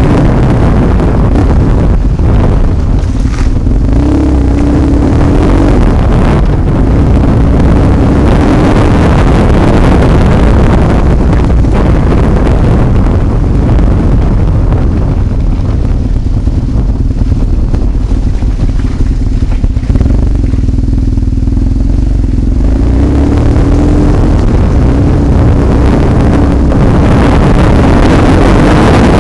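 BMW HP2's boxer-twin motorcycle engine running under changing throttle, heard from on the bike with heavy wind buffeting on the microphone. The engine note rises and falls, and the rush of wind noise eases for several seconds past the middle.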